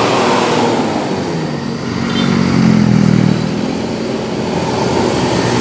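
Motorcycle engine running through a loud aftermarket Luragung 'ngorok' (snoring) exhaust, swelling louder about halfway through and then easing back.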